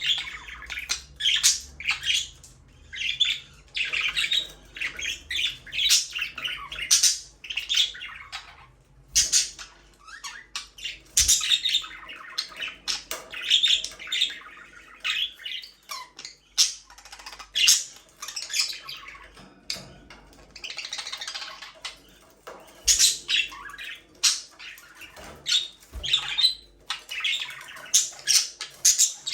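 Budgerigars chirping and chattering continuously, a dense run of short chirps, warbles and squawks, with a few sharp clicks among them.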